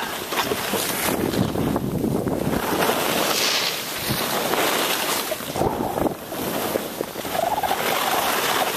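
Wind rushing over the camcorder's microphone while skiing downhill, mixed with skis hissing through loose snow; the rush swells and eases from moment to moment.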